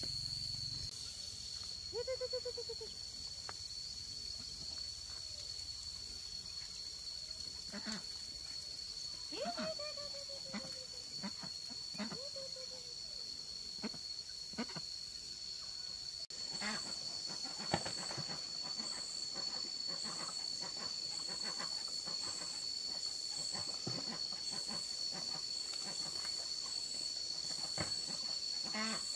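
Steady high-pitched insect drone, with an animal giving a few short falling calls early on and scattered clicks and snaps, busier in the second half.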